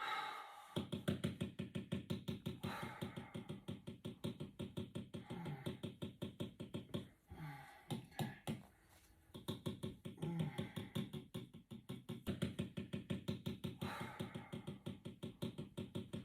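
Rapid, even tapping, about seven taps a second, with a break of about two seconds midway before it starts again.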